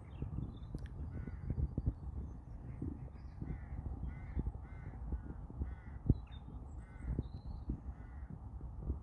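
Corvids cawing over and over, a run of short harsh calls about two a second, over a low rumble with a single sharp knock about six seconds in.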